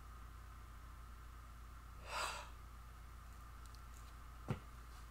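A man's sharp, breathy breath, lasting about half a second, about two seconds in, then a single short knock near the end, over a steady low room hum.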